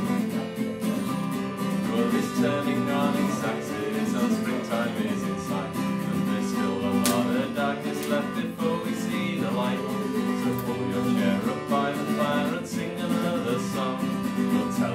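Acoustic guitar strummed in an instrumental passage of a song.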